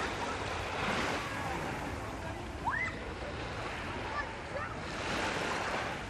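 Small waves washing in over the sand at the water's edge: a steady hiss that swells about a second in and again near the end.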